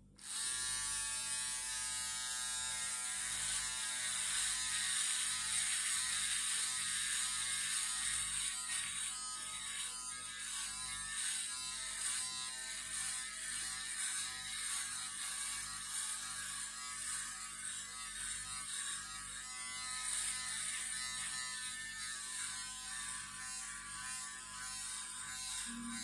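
Electric shaver switching on abruptly and buzzing continuously as it is run over beard stubble, its pitch and level wavering slightly as it moves across the face.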